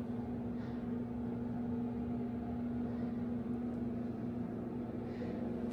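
Ventilation fan running with a steady hum, one steady tone standing out over an even whirring noise.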